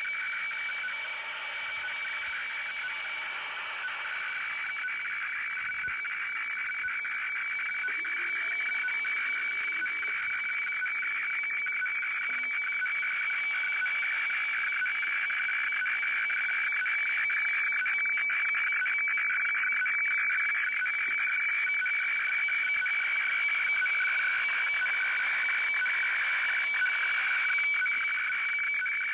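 Shortwave radiofax (WeFax) signal from Kyodo News heard through a Sony CRF-V21 receiver's speaker: a steady high whistle with a lower buzzing tone beneath, continuous over shortwave hiss. The two tones are the fax's white and black picture levels, the sound of a newspaper page being received and printed line by line.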